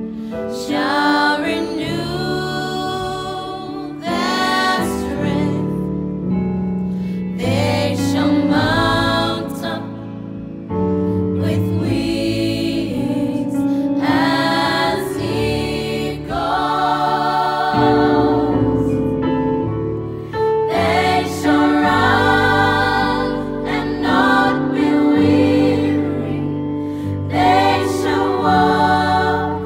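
A small group of women singing a slow hymn in harmony, with long-held notes, over sustained electric keyboard chords.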